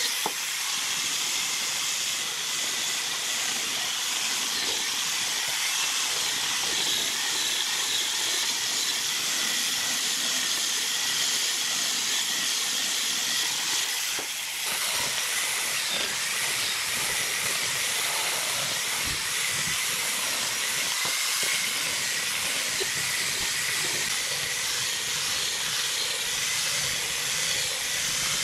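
Angle grinder fitted with a sanding disc running at speed and sanding a pallet board: a steady high whine over the hiss of abrasive on wood, with a brief dip about halfway through.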